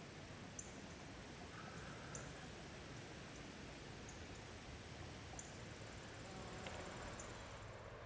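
Faint meadow ambience: a steady high-pitched insect trill over a low rumble of background noise, the trill stopping just before the end.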